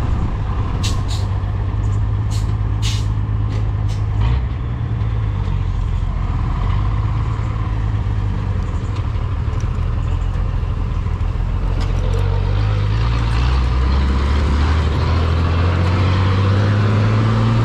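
Small-displacement motorcycle engine running steadily while riding, its pitch rising from about two-thirds of the way in as it speeds up. A few short clicks in the first few seconds.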